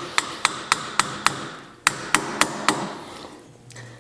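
A hammer striking a screwdriver to drive it through a stuck oil filter's metal canister, a run of sharp metallic blows about four a second with a short break in the middle, stopping a little before the end.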